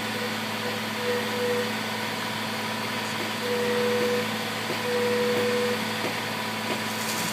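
A concrete pump truck and a cement mixer truck run steadily with an even engine drone. Three drawn-out higher tones sound over it: one about a second in, a longer one around three and a half seconds, and another around five seconds.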